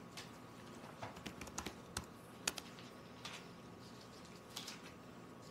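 Faint, scattered clicks and light rustles at irregular intervals: the sound of a class looking up a Bible passage.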